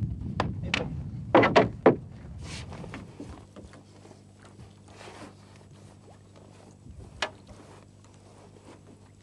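A landed carp splashing in a landing net at the water's surface beside a boat: several sharp splashes in the first two seconds, then quieter water sounds with an occasional small knock and a faint steady low hum.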